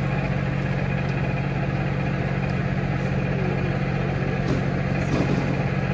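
Engine idling at the scene: a steady low drone that does not change.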